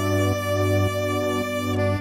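Background music: held instrumental notes that change pitch every half second or so.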